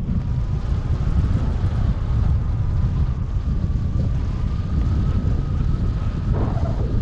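Airflow buffeting the microphone of a wing-mounted camera on a hang glider in flight: a loud, steady low rumble of wind, with a faint steady whistle above it.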